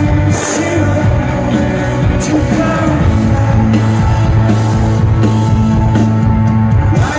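Live rock band playing with singing over a heavy, sustained bass line, with cymbal crashes now and then.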